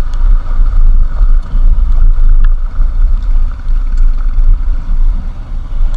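Wind buffeting the camera's microphone on a moving motorcycle: a heavy, gusting low rumble over the bike's engine and road noise, with the camera out of its waterproof case.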